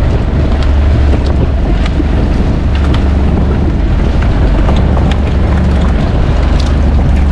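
Motorized outrigger fishing boat's engine running with a steady low drone, under wind buffeting the microphone. Scattered light knocks from crates and net being handled on deck.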